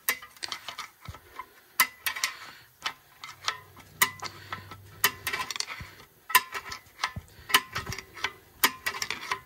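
A flat screwdriver prying the star-wheel adjuster of a Subaru Crosstrek's rear drum-in-hat parking brake through the access hole in the rotor, clicking it over tooth by tooth to spread the shoes. Sharp metallic clicks at irregular spacing, a few a second.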